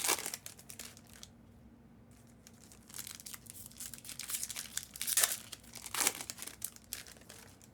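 Plastic-foil trading-card pack wrappers crinkling and tearing as packs are ripped open by hand, in irregular bursts with a quieter stretch about a second in.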